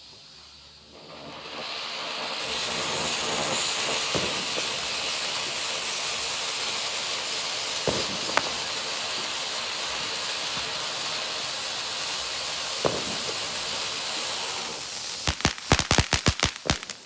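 Snow cone ground fountain firework spraying with a steady hiss that builds up about a second in, with a few scattered pops. Near the end it breaks into a rapid run of sharp crackling reports.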